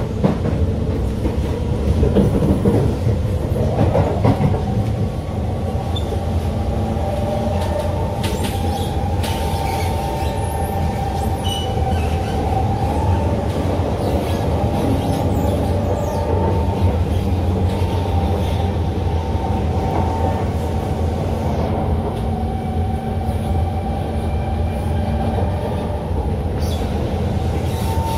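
SMRT Kawasaki C151 metro train running along the track, heard from inside the carriage: a steady rumble with a wavering whine over it.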